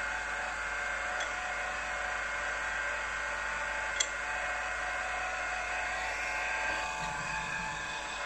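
Small milling-drilling machine's spindle running steadily with a centre drill in the chuck, a whine made of several steady tones over a low hum, the drill not yet cutting into the brass bearing. A single sharp click about four seconds in.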